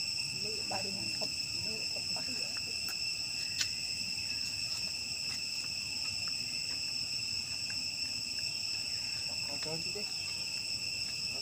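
Steady insect chorus: a continuous high buzz held at several pitches without a break. One sharp click sounds about three and a half seconds in.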